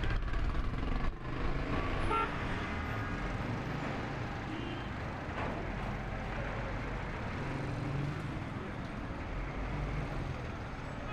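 Busy city street traffic: vehicle engines running and tyre noise, with a short car horn toot about two seconds in.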